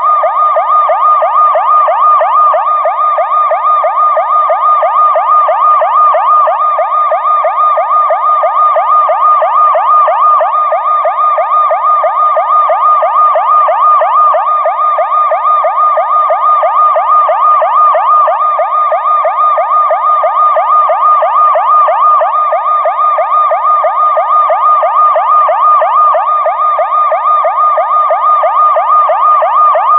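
Electronic police siren in its fast yelp mode, played in reverse: a continuous wail that sweeps up and down in pitch several times a second, steady in loudness throughout.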